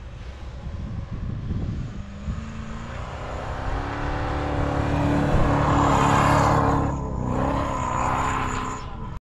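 A 4x4 SUV's engine revving up and held at high revs as it ploughs through deep snow with its wheels spinning. The revs climb about two seconds in and ease off near the end.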